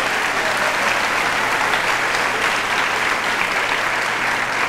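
Live audience applauding steadily, a dense even clapping.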